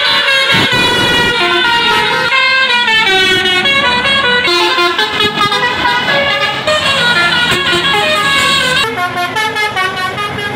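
Tour bus 'telolet basuri' musical air horn playing a melody of quickly stepping notes, several horn tones sounding together.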